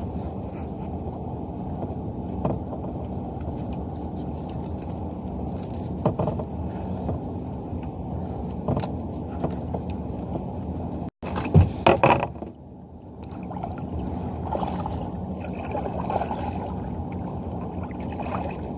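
Steady, muffled water and wind noise around a kayak on open water, with scattered knocks and a louder clatter about twelve seconds in.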